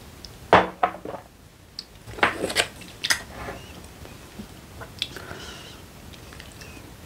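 Tableware being handled: a few sharp knocks and scrapes of a shot glass, a ceramic rice bowl and a wooden spoon against a pot. The loudest comes about half a second in, then a cluster of clatters around two to three seconds in, and fainter ones later.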